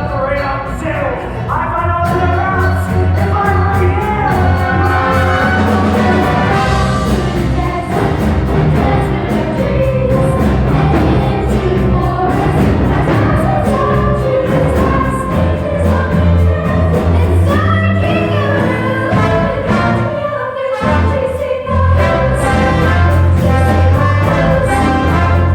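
Music: a group of voices singing together over an instrumental backing.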